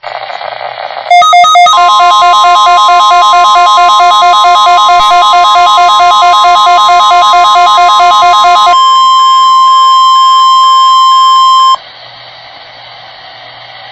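Midland WR120EZ weather radio sounding an alert: the receiver's rapidly alternating two-pitch alarm beeps start loud about a second in, over the broadcast steady 1050 Hz warning alarm tone, sent here as a test. The beeping stops after about seven and a half seconds, the steady tone carries on alone for about three more seconds and cuts off abruptly, leaving radio hiss.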